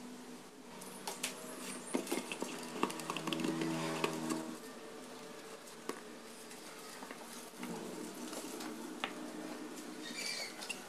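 Small clicks, taps and scratches of hands handling and pressing thin wooden strips into a wooden model car body on a tabletop, busiest in the first half, over a faint steady hum.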